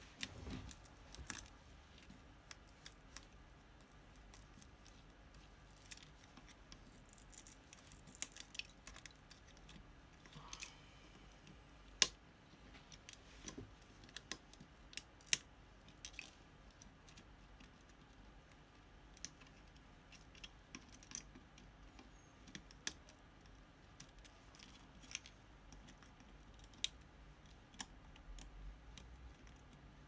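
Metal tweezers clicking and scraping on a keypad's metal plate as old, torn rubber seal pieces are picked off: scattered, irregular clicks, a few sharper than the rest.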